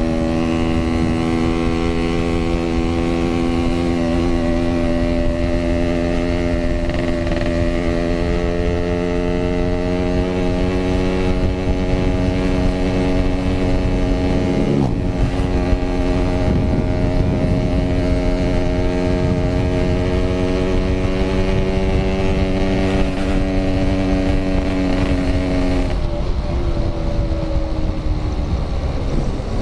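Yamaha RX-King 135cc two-stroke single-cylinder motorcycle engine running at a steady cruising pace, its pitch creeping slowly upward. It briefly drops and recovers about halfway, then falls off near the end as the bike slows. Constant wind rumble on the microphone.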